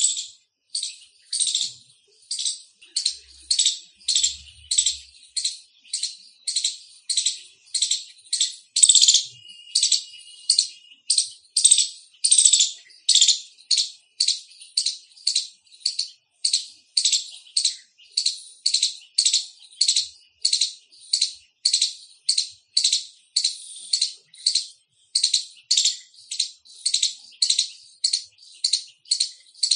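Indian palm squirrel giving its loud chirping call: short, sharp, rasping chirps repeated evenly about twice a second without a break.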